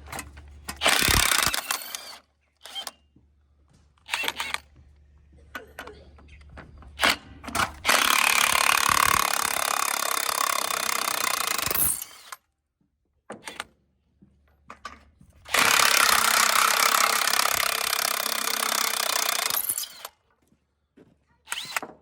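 Power tool, most likely an impact wrench, removing lug nuts from a truck wheel. It gives a few short bursts, then runs in two long spells of about four seconds each with a pause between.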